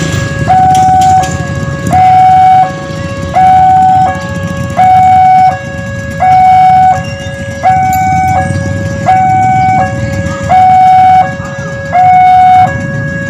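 Railway level-crossing warning alarm sounding its electronic two-tone signal, loud and steady, a higher and a lower note alternating about every three-quarters of a second. It is the warning that a train is approaching the crossing.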